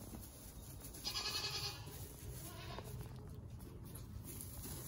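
A Nigerian dwarf goat bleats once, briefly, about a second in.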